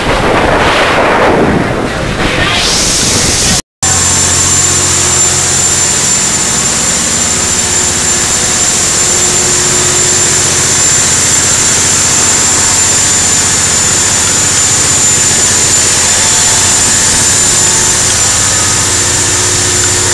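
Rushing wind noise on the microphone for a few seconds. Then, after a brief cut to silence, a steady machinery hum: a constant low drone with a thin high-pitched whine over it.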